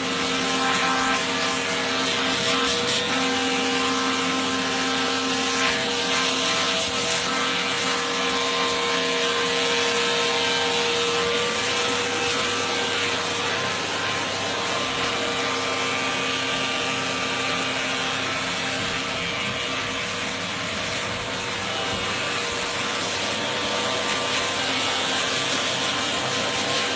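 Thread-trimming machine running, with the steady hum of its suction motor and a continuous rubbing, scraping noise.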